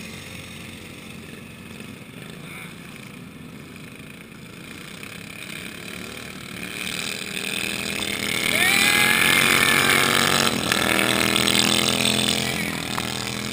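Engines of racing riding lawn tractors running on an ice track: distant at first, then swelling about seven seconds in as machines pass close, loud with a rising engine note, before fading again.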